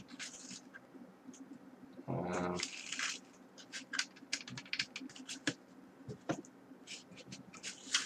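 Hands handling a plastic Icy Dock SSD adapter case: scattered clicks and scratches of fingers and the case's plastic parts as it is turned over and its lid pressed. A brief voiced sound, about half a second long, about two seconds in.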